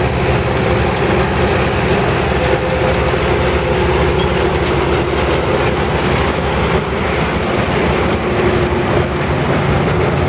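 Potato combine harvester running steadily while digging and loading a truck: a diesel drone with the noise of its conveyor chains and belts.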